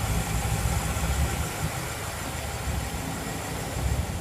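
A car engine idling, a steady low hum with no revving.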